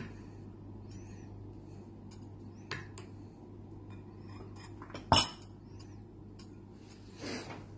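Metal spoon tapping and clinking against a glass mixing bowl while spreading thick yogurt, a few light taps, a sharper clink about five seconds in and a brief scrape near the end, over a low steady hum.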